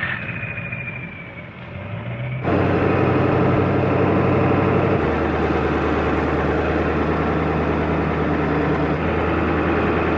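The 7.3-litre Powerstroke turbo-diesel V8 of a 1996 Ford F-350 pulling along a dirt road, a steady low engine drone under road noise. It is quieter at first, becomes suddenly loud about two and a half seconds in, and the engine note drops slightly about five seconds in.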